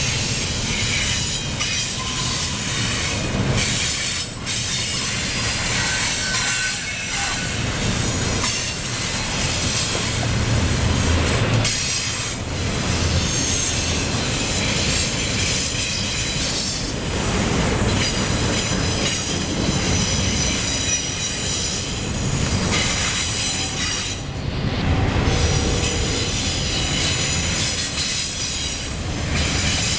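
Double-stack intermodal container well cars of a freight train rolling past close by, a steady rumble of steel wheels on rail with high-pitched wheel squeal over it.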